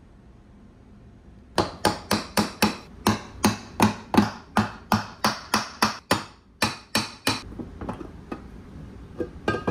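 A hammer striking the jet-ski engine's aluminium crankcase: about two dozen sharp, ringing blows at roughly four a second for several seconds, then a few lighter knocks near the end.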